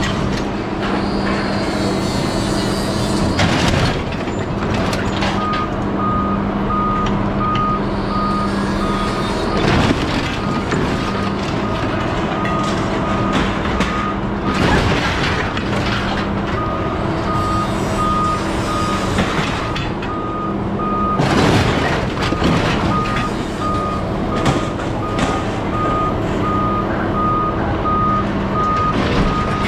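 A heavy vehicle's reversing alarm beeps steadily over a running diesel engine, starting about five seconds in. Scrap metal clanks and crashes a few times.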